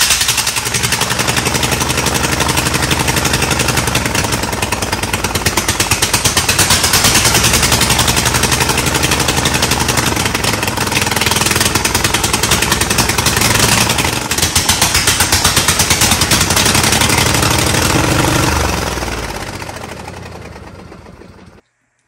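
26 hp Briggs & Stratton V-twin engine on a John Deere D110 lawn tractor running steadily with a rapid pulsing beat, then shut off near the end and running down to a stop. It is running rich, which the owner puts down to the carburetor.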